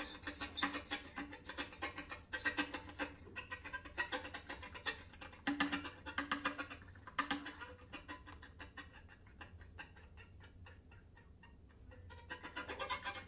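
Music of rapid, clicking notes, about ten a second, with a few held low pitches. It thins out and gets quieter past the middle, then swells again near the end.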